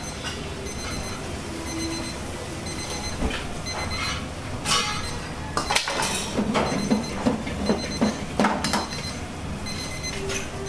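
Ladle clanking and scraping against a wok in a burst of clicks and knocks through the middle, over a steady low rush. An electronic kitchen timer beeps repeatedly at the start and again near the end.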